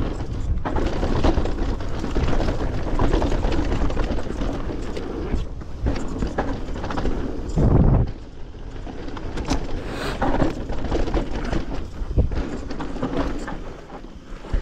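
Yeti 160E electric mountain bike rushing down a dirt trail: a steady rushing noise with constant rattling and clacking from the bike over bumps, and a heavy thump about halfway through.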